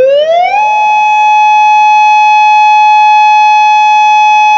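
Federal Signal Modulator II 8032B electronic outdoor warning siren sounding its steady alert tone during a test: the pitch glides up in the first half-second, then holds one loud, steady, buzzy tone.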